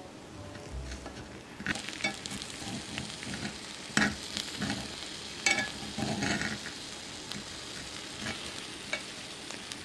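Serrated knife sawing through a baked omelette in a cast-iron skillet, crackling and scraping against the iron, with sharp clicks about four seconds in and again near five and a half seconds. A faint sizzle from the hot pan runs underneath.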